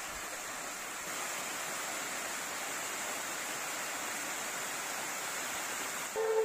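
Small waterfall on a hill stream, water rushing steadily. Music starts near the end.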